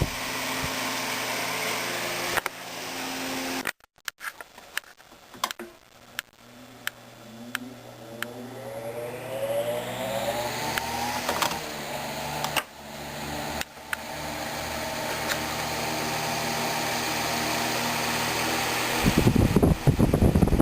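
Antique Century S-3 oscillating fan's electric motor spinning up from rest, its hum rising in pitch over several seconds before settling into a steady run. A louder rush of air comes in near the end.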